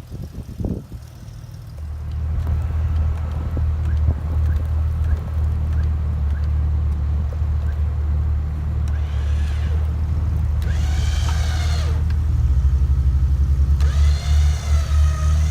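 A vehicle engine starts running steadily about two seconds in and is put under load as the Jeep is pulled out of the snow. It grows louder and more uneven near the end, with a few brief knocks in the first second.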